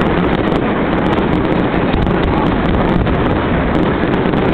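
Fireworks display heard as a dense, steady rumble with many small crackles and no single big bang, and wind buffeting the microphone.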